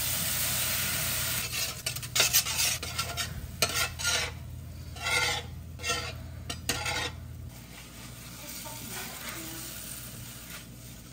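Liquid from a can hissing and sizzling on a hot griddle, then a slotted spatula scraping across the griddle surface in repeated strokes for several seconds, working the residue off to clean it.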